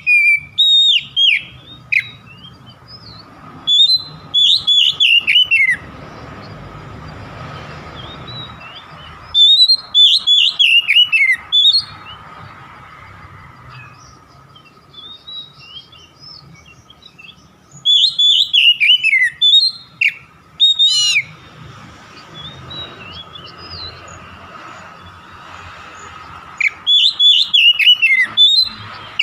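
Oriental magpie-robin (kacer) singing in five short bursts of fast whistled notes, many falling in pitch, with pauses of a few seconds between phrases. A faint steady tone runs underneath.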